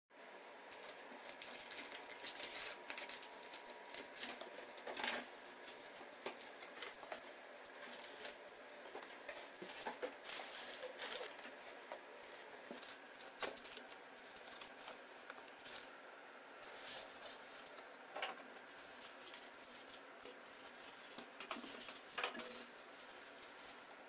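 Cardboard packaging being handled and opened: faint rustling and scraping with scattered sharp clicks.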